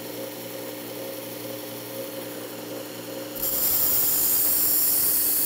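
Work Sharp Ken Onion Edition belt sharpener with the Blade Grinding Attachment running with a steady motor whine. About three and a half seconds in, the paring knife's edge meets the abrasive belt and a loud, high hiss of steel being ground sets in: the knife is being sharpened after its broken tip was reground.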